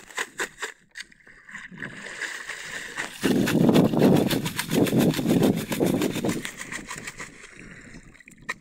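Shallow sea water sloshing around a plastic mesh basket swished through it, loudest and pulsing from about three seconds in to about six and a half. A quick rhythmic scraping, about six strokes a second, fades out in the first second.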